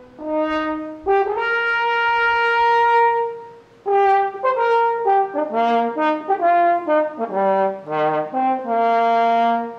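A French horn played solo: a long held note starting about a second in, a brief pause, then a run of shorter notes stepping up and down.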